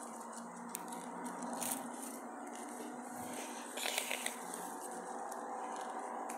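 Dry leaves and wood mulch crunching and rustling as a toy lizard is pushed through them, with a short cluster of crunches about four seconds in.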